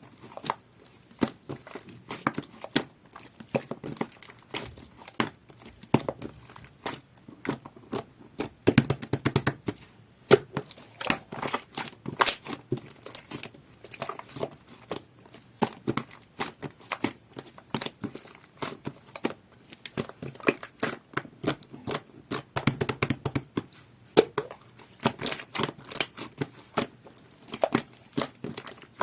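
Hands squishing, poking and stretching a soft jelly-textured slime, giving a dense run of wet clicks and small pops.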